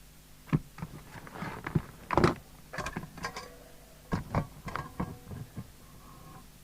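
Handling noise on a workbench: a run of irregular clicks, taps and short scrapes from tools and small parts being moved about, loudest a little over two seconds in.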